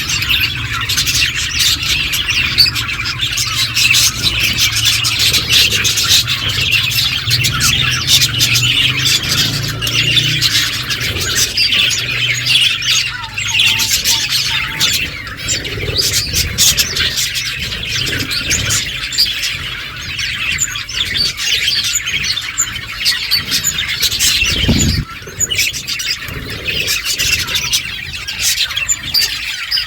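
Several budgerigars chirping and chattering without pause, a dense stream of high, quick chirps.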